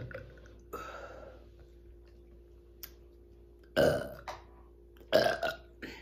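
A woman burping on command: two loud, short burps about four and five seconds in, the second followed by a smaller one, with a fainter breathy sound about a second in.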